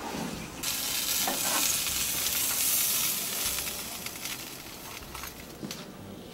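Tri-tip steak sizzling on a hot grill: a steady hiss that starts abruptly about half a second in and fades over the last couple of seconds as the meat comes off the grill.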